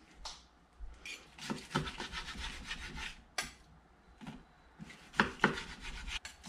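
Kitchen knife sawing back and forth through a slow-cooked black bear roast, the blade rasping through the meat and scraping on a plastic cutting board, with a few sharper knocks of the blade on the board near the end.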